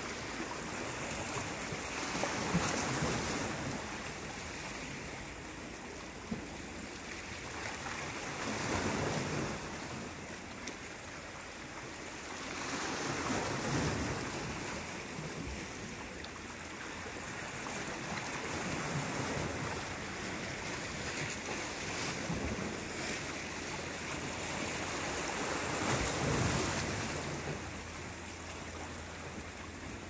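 Small sea waves washing and splashing over shoreline rocks, the wash swelling and easing every few seconds.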